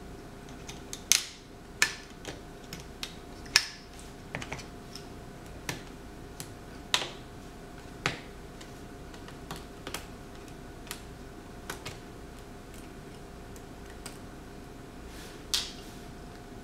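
Scattered sharp plastic clicks and taps from fingers working at the edge of an HP EliteBook 8560p's screen bezel, about a dozen spread unevenly, the loudest about a second in and around three and a half seconds. A faint steady hum lies underneath.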